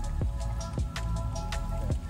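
Background music with sustained chords over a beat of percussive hits and low, falling bass notes.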